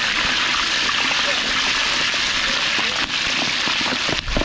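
Pork jowl pieces deep-frying in a large wok of hot oil: a steady sizzle of bubbling fat, with a brief knock near the end.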